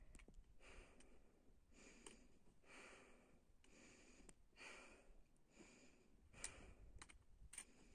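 Faint, hard breathing of a hiker climbing a steep slope, about one breath a second, with a few faint sharp clicks.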